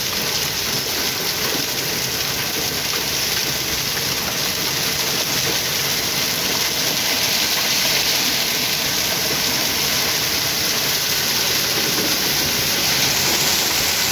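Heavy rain pouring down steadily, a dense even hiss that grows a little louder about halfway through.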